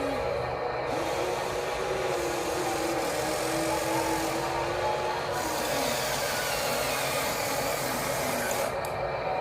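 Electric gear motors of a toy RC construction machine whirring and grinding, their pitch sliding up and down as the load changes.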